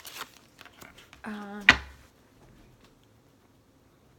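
Fortune-telling cards being handled: a few soft rustles and taps, then one sharp click a little under two seconds in, the loudest sound, after which it goes quiet.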